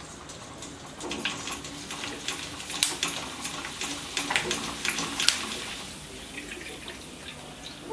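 Potato strips (aloo bhujia) deep-frying in hot oil: a busy sizzle with many sharp pops and crackles, easing off after about five seconds.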